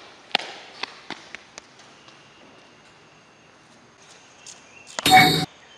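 Footsteps on a hard court floor: a few sharp steps in the first two seconds, then fainter scattered ticks. About five seconds in comes a brief loud burst with a squeaky, pitched edge.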